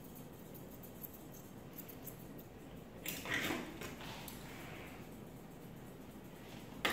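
Quiet grooming-room tone with a small click of grooming scissors about a second in, and a brief clatter of metal tools being handled about three seconds in.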